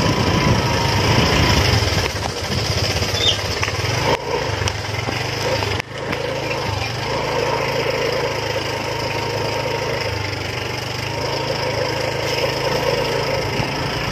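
Small motorcycle engine running steadily while riding over a bumpy dirt track, with rattling from the rough ground; the engine note dips briefly about six seconds in.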